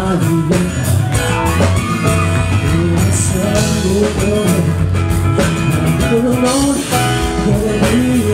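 Live rock band playing through a PA, with electric guitar, bass and a steady drum beat under a male lead vocal.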